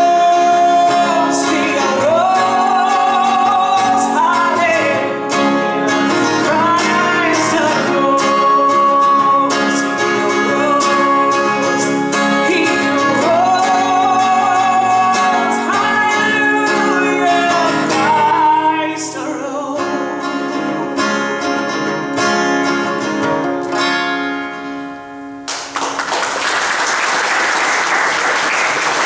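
A woman singing long held notes over an acoustic guitar, the end of a song. Her voice stops about two-thirds of the way through, leaving the guitar playing alone. Applause breaks out near the end.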